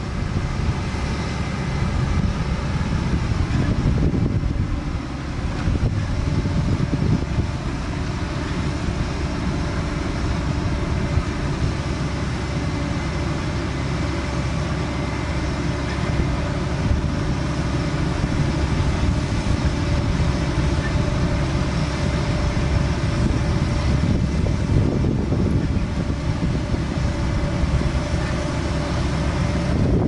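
AVR Puma 4.0 self-propelled potato harvester at work lifting potatoes: its diesel engine and harvesting machinery run with a steady drone.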